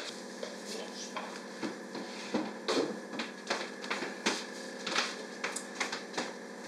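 Cloth sheets rustling and flapping as a heap of freshly steamed rice is tipped out of them onto a table, with irregular light knocks over a steady hum.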